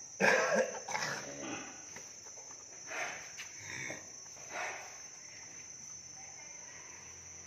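A cow gives several short grunting bawls as a nose rope is threaded through its freshly pierced nose, the loudest just after the start and the last about four and a half seconds in. Crickets chirr steadily underneath.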